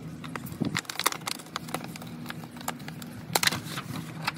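Plastic packaging being pulled off a roll of fabric car seat covers and the covers unfolded: a run of sharp crinkles and snaps, loudest about a second in and again past the three-second mark. A steady low hum runs underneath.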